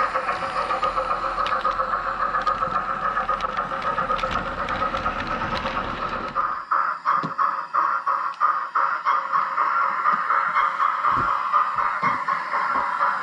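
OO gauge model trains running on the track, with a steady motor whine throughout. For the first six seconds or so a low rumble of a passing train of coaches carries through the baseboard; after that it stops and a locomotive comes through with regular clicking of wheels over rail joints.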